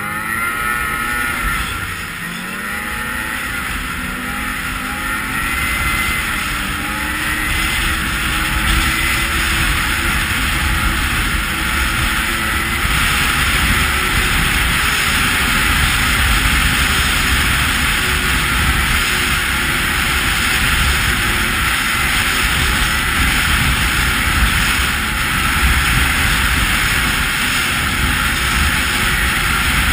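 Snowmobile engine accelerating, its pitch rising over the first few seconds, then running steadily at speed along the trail.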